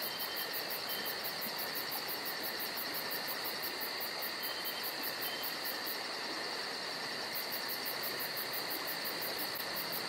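Crickets chirring steadily: a fast, even pulse over a constant hiss.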